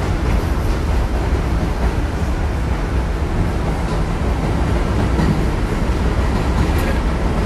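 Steady running noise inside a moving New York City Subway 6 train car: a deep rumble of wheels on the rails as the train travels along the elevated line.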